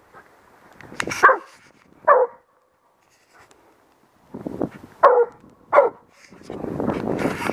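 Estonian hound barking: several short barks spaced across a few seconds, each dropping in pitch.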